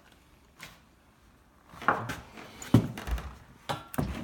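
A light click about half a second in, then a run of knocks and a low thud in the second half, like items being handled.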